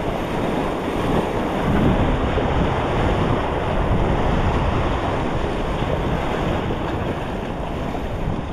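Surf breaking and washing over jetty rocks, with wind buffeting the microphone; the wash swells a little louder about two seconds in.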